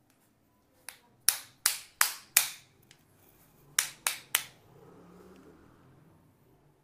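A series of sharp taps in a small room: a light one, then four loud ones about a third of a second apart, then three more a second and a half later, each with a short ringing tail.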